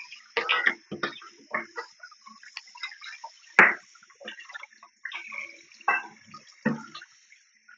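Close-up eating sounds: irregular chewing and smacking mouth clicks, the loudest about three and a half seconds in.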